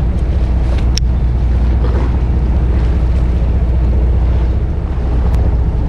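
Steady low rumble of wind buffeting the microphone and sea water slapping against the hull of a small boat, with one sharp click about a second in.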